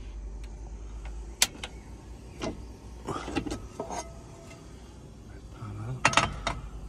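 Plastic storage boxes being handled and rummaged through: lids and boxes knock and clatter in a few sharp clicks, with a busier cluster of rattling in the middle and two or three sharp knocks near the end.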